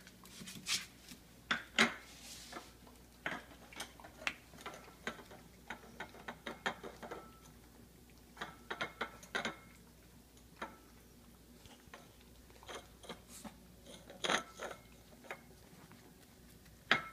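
Irregular sharp clicks and taps, some with a brief ringing clink, from small dogs moving about on a tile floor and eating treats.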